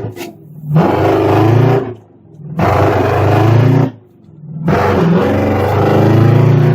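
Straight-piped 8V71 Detroit Diesel two-stroke V8 in a 1980 GMC General semi truck pulling hard three times, its pitch climbing during each pull, with a short drop-off in between. Very loud, the screaming note of a Detroit two-stroke through dual straight pipes.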